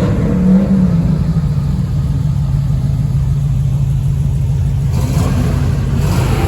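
Classic car engine running at low speed with a steady low rumble, its pitch rising briefly about half a second in before settling.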